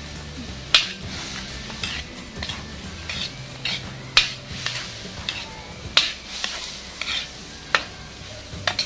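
Stirring vegetables for pancit in a cooking pan: a utensil knocks and scrapes against the pan in sharp, irregular strikes about once a second.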